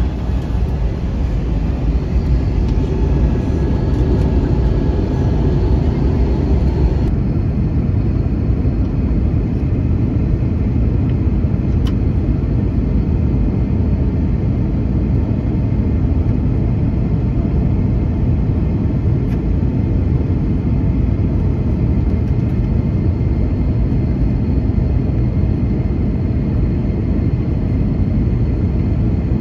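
Steady in-flight cabin noise of an Airbus A321 airliner: a constant rumble and rush of engines and airflow. About seven seconds in the higher hiss drops away suddenly, leaving a duller rumble.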